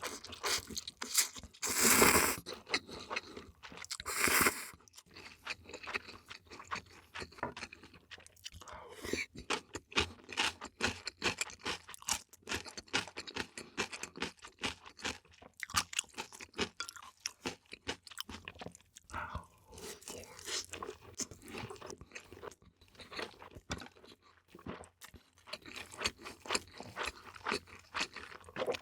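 Close-miked eating: chewing with many crisp crunches and bites, with a few louder, longer bursts in the first few seconds.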